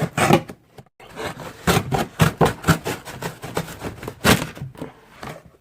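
Cardboard boxes scraping and rustling against each other as an inner box is worked out of a larger shipping box: irregular scuffs, with a louder one about four seconds in.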